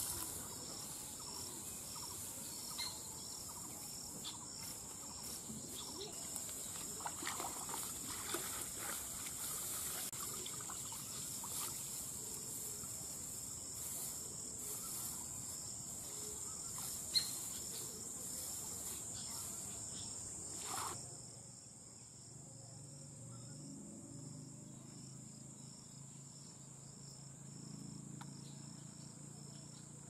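Steady high-pitched insect trill throughout. For about the first 20 seconds it is joined by irregular splashing and rustling of wet grass and shallow water. After that it goes quieter and the trill carries on alone.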